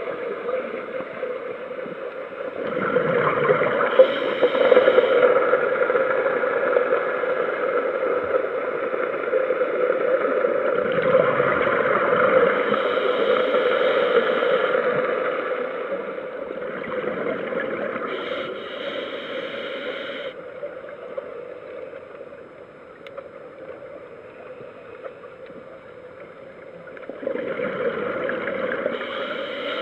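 Underwater scuba breathing: exhaled regulator bubbles gurgling past the camera in four bursts several seconds apart, over a steady hum.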